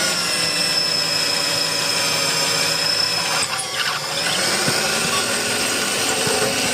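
Magnetic drill press running with a steady electric-motor whine while drilling a steel plate. About three and a half seconds in the sound briefly dips and wavers, then the whine settles again, rising a little in pitch.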